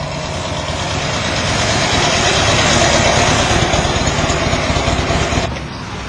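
A motorcycle engine running as the bike rides up and pulls in close, growing louder to about the middle. The sound drops off suddenly near the end.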